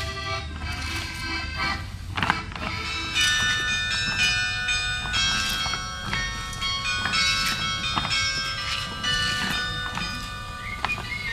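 Carillon bells playing a folk dance tune, each struck note ringing on and overlapping the next.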